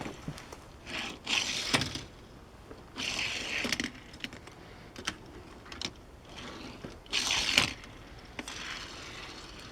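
Die-cast Hot Wheels toy car rolling on its small plastic wheels, three short whirring rolls each under a second long, with a few light clicks in between.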